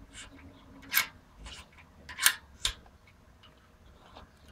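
A handful of irregular sharp clicks and ticks from a steel thread-repair tap being turned by hand in a T-handle, cutting oversize threads for an M10-1.5 insert in an aluminum oil pan. The loudest clicks come about one and two seconds in.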